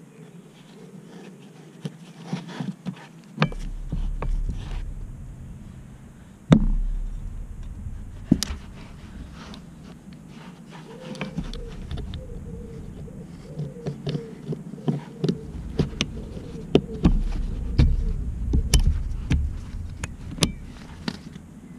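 Irregular metallic clicks, taps and a few sharper knocks of hand tools and fixings as a mechanic works on bolts around a BMW 330d's gearbox during a clutch job, with low rumbling bumps of handling noise in between.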